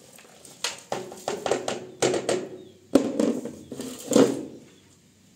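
Sweepings tipped from a plastic dustpan into a bin, with a straw broom worked over the pan: a series of rattles, scrapes and knocks lasting about four seconds.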